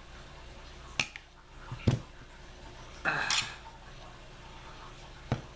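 Sharp knocks of a polymer shotgun forend and its steel magazine tube against a tabletop, as the forend is pushed down onto the tube: three separate knocks, the second the loudest. A brief rustling scrape comes about three seconds in.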